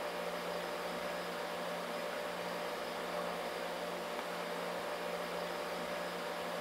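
Steady hiss with a low hum: an amplified EVP (electronic voice phenomenon) recording being replayed, in which a voice saying "I think he knows he has permission" is claimed to be heard.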